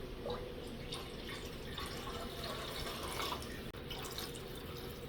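Liquid pouring and dripping into a soup pot, a steady trickle with small splashes: broth and water going in for the soup base.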